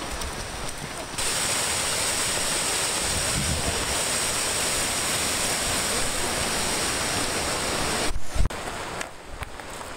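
Rocky mountain stream cascading over boulders: a steady rush of water that cuts in about a second in and stops abruptly near the end, followed by a brief thump.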